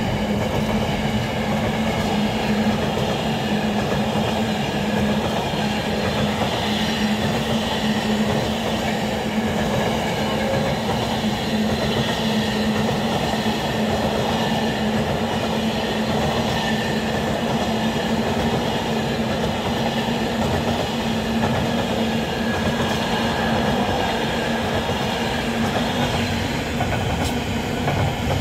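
Freight train of mostly empty intermodal container flat wagons running past at speed: a steady rumble of wheels on the rails, with a steady low hum throughout.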